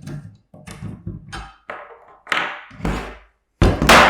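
Metal parts of a projector ceiling mount being handled while its bolts are undone: a series of short knocks and clicks, then a louder clatter about three and a half seconds in.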